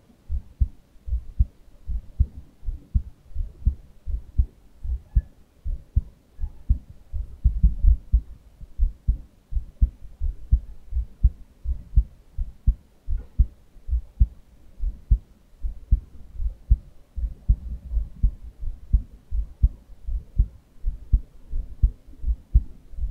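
Heartbeat heard through a 3M Littmann Cardiology IV stethoscope chestpiece and picked up by a microphone at the earpiece: a steady, regular run of low, dull lub-dub thuds.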